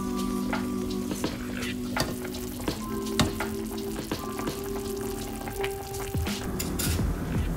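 Short ribs braising in soy and red wine in a covered pot, the liquid bubbling at a simmer with scattered pops and crackles.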